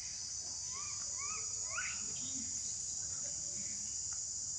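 Steady, high-pitched drone of insects in the surrounding trees, with a few short chirps about a second in.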